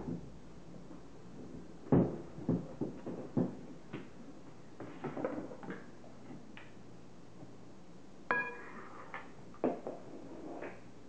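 Spoons and a spatula knocking and scraping against mixing bowls and a glass trifle bowl: a series of sharp knocks, with one ringing clink about eight seconds in.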